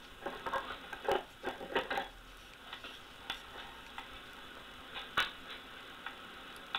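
Lathe turning a workpiece on a faceplate, with irregular sharp clicks and ticks. The clicks come thick in the first two seconds, then sparser, with one louder click about five seconds in.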